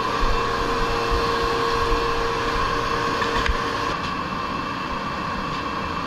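Steady whir of woodworking shop machinery running, with a steady hum. One steady tone drops out about three and a half seconds in, and the noise eases slightly there.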